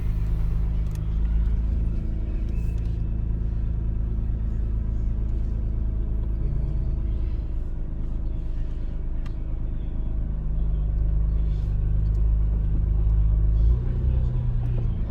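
Acura NSX driving at low speed, heard from inside the car: a steady low drone of engine and road noise, a little louder near the end.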